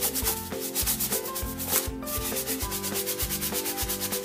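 A paintbrush scrubbed rapidly back and forth on a piece of cardboard, a steady scratchy brushing. The bristles are being worked almost dry of paint, ready for dry brushing.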